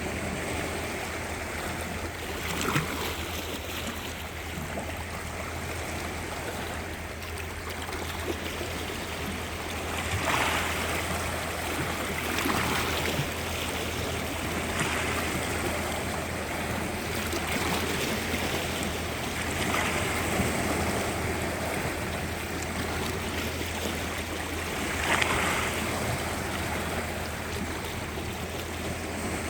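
Small sea waves washing onto the shore, each wash swelling every few seconds over a steady rush of water.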